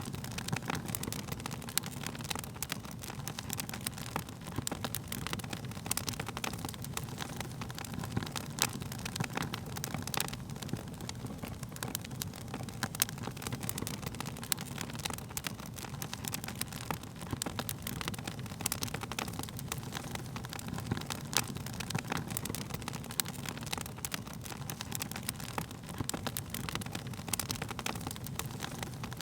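Wood fire burning steadily with a low rushing of flames and frequent sharp crackles and pops of burning wood.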